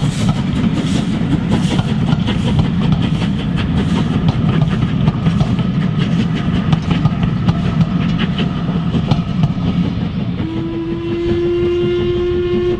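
Steam locomotive working a train, its exhaust beating in a steady rhythm. About ten seconds in, its steam whistle sounds one long, steady note.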